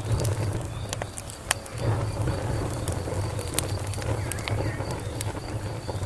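Wood fire burning: sharp crackles and pops, scattered at random, over a steady low rumble.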